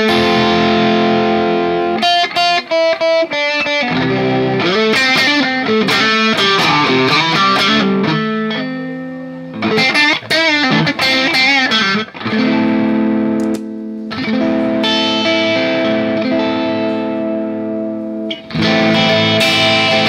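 Telecaster electric guitar played through a Valeton GP200 multi-effects preset: ringing strummed chords and picked lines, with a run of short choppy chord stabs a few seconds in and a brief break about two-thirds of the way through.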